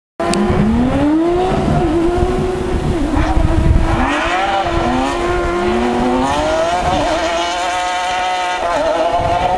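Trophée Andros ice-racing car engines revving hard as the cars slide across a snow and ice circuit. The engine pitch rises and falls over and over with throttle and gear changes. The sound cuts in abruptly just after the start.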